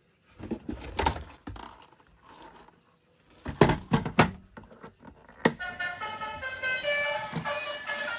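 A few sharp knocks and rattles, the loudest a quick run of three a little before the middle. Background music with a melody then starts about five and a half seconds in.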